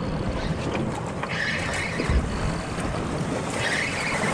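Wind and sea noise aboard a boat offshore, with two brief hissing surges of water about a second and a half and about three and a half seconds in.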